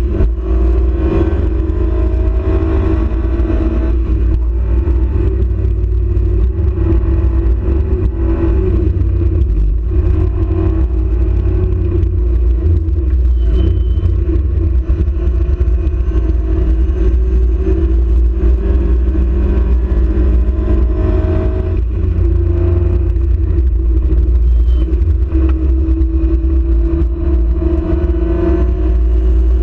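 Marcos race car's engine at racing speed, heard from inside the cockpit over a heavy low rumble. The engine note climbs through the revs again and again, with short breaks at the gear changes.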